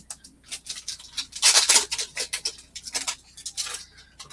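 Irregular scratching and rustling: a quick run of short dry scrapes, loudest about a second and a half in.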